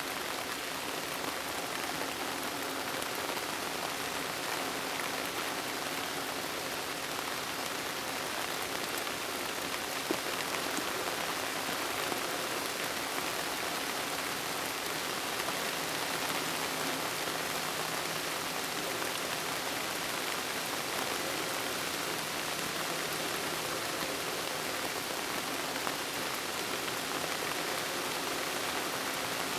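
Steady rain falling on forest foliage, an even hiss with no pauses.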